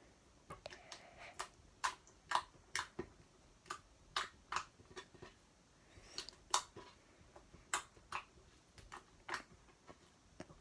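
Fingers poking into sticky, freshly made slime, giving its poke noise: a string of sharp little pops and clicks at an irregular pace, about one or two a second.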